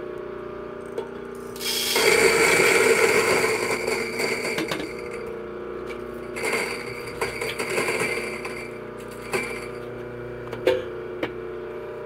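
Mahlkönig EK43S coffee grinder motor running with a steady hum while it grinds a single dose of espresso beans. The loud gritty grinding starts about a second and a half in, eases after a few seconds, and returns in shorter bursts as the last beans go through. A few sharp clicks are heard along the way.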